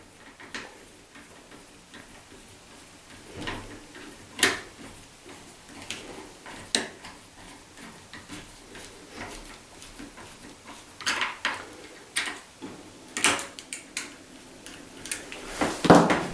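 Scattered light clicks and taps of metal door-handle fixing screws being turned in by hand through the door, the tool and screw heads knocking against the handle plate, with a louder clatter near the end.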